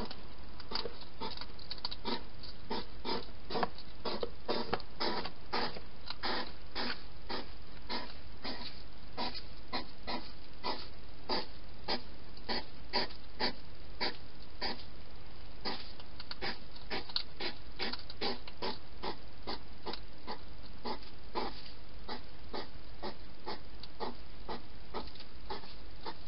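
A wild hedgehog eating from a dish inside a plastic feeding box, chewing in a steady run of sharp clicks, about three a second.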